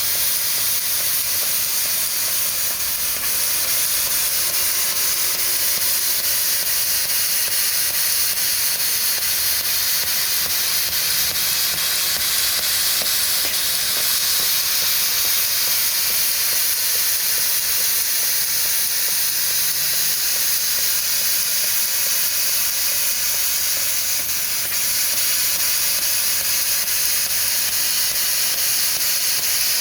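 CNC laser cutter flycutting rows of holes in a stainless steel tray: a steady, loud hiss of gas jetting from the cutting head as it works.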